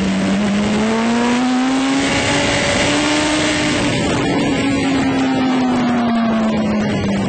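Sport motorcycle engine heard from on board while riding, a steady drone whose pitch rises a little over the first three seconds and then slowly eases off, over a constant rush of wind noise.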